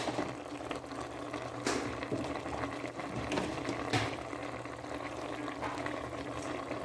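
Pot of milkfish and eggplant simmering in vinegar broth, bubbling at a boil over a steady low hum, with two short knocks, one a little under two seconds in and one about four seconds in.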